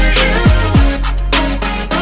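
Background music: an upbeat track with a steady beat and deep bass-drum hits that drop quickly in pitch.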